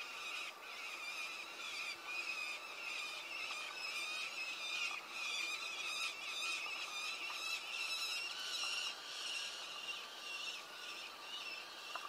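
Peregrine falcon chicks begging for food with continuous, overlapping high-pitched calls that pulse without a break while an adult feeds them.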